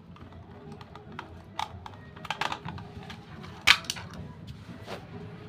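Small plastic clicks and taps as a screwdriver turns out the battery-cover screw on a toy RC tank's plastic underside and the cover is lifted off, with one louder click a little over halfway through.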